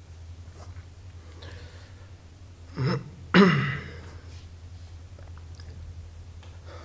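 A man clears his throat: two short rough bursts about three seconds in, the second louder.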